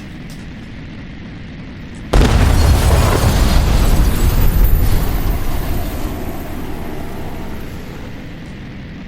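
Added crash-and-rumble destruction sound effect: a loud boom hits suddenly about two seconds in over a low rumble, then rumbles on and fades away slowly over several seconds.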